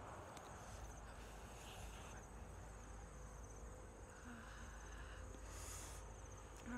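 Faint steady high trill of insects such as crickets, pulsing finely without a break, with a brief soft rustle about five and a half seconds in.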